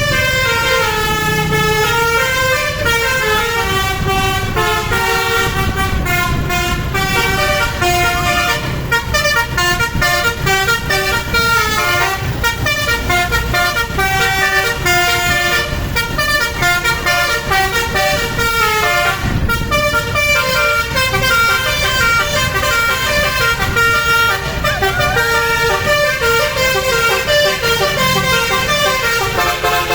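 Basuri multi-tone 'telolet' bus horn playing a long string of tunes, its trumpets stepping from note to note without pause, over the low rumble of an engine.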